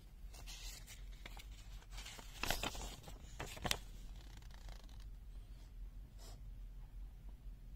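Faint clicks and taps from a handheld multimeter being handled and its buttons pressed, with a few sharper clicks about two and a half and three and a half seconds in, over a low steady hum.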